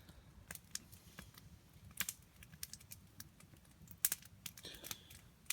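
Wood campfire crackling quietly: sparse, irregular sharp pops and snaps, a few a second, over a low background hiss.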